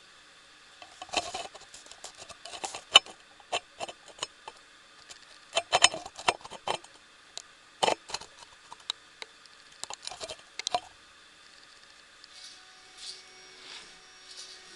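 Redcat Rockslide RS10 XT RC rock crawler clattering over a makeshift indoor course: a run of irregular hard clicks and knocks as its tires and chassis bump against the obstacles, dying away in the last few seconds.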